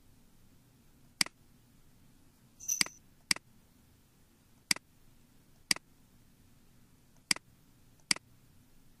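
Computer mouse clicking: seven sharp single clicks at uneven intervals of about a second or so, as menus and dialog buttons are selected.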